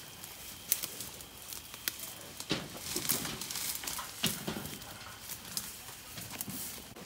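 Cattle pushing through tall grass and brush: rustling stems and leaves, twig snaps and hoof steps, with a few heavier movements about two and a half and four seconds in.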